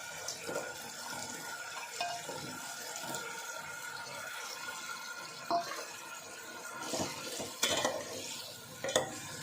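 Sauce bubbling at the boil in a pan, with a few sharp clinks of a spoon against the pan in the second half.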